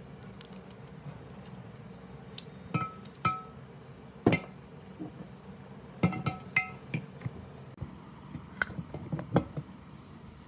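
Metal parts clinking and tapping against each other, a dozen or so sharp strikes, some ringing briefly with a clear metallic note, over a steady low hum.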